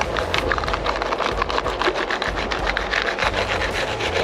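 Fillet knife cutting through a large sockeye salmon, a rapid, irregular run of crackling crunches as the blade works through the bones. A low steady rumble runs underneath.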